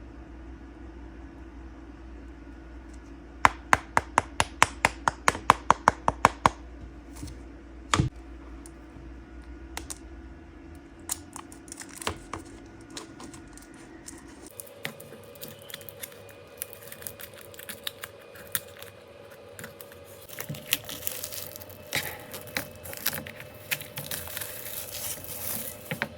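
Toy packaging and plastic puzzle pieces being handled and unpacked. A quick run of about a dozen sharp clicks comes a few seconds in, then scattered clicks and tearing and scraping, which grow busier near the end, over a steady low hum.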